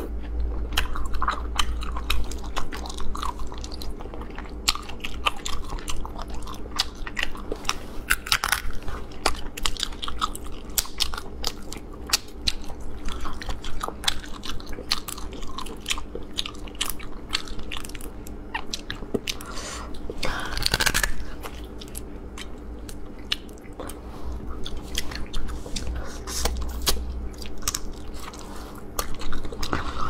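Eating sea snails cooked in chili oil: biting and chewing mixed with frequent sharp clicks and crunches as the shells are pried apart by hand.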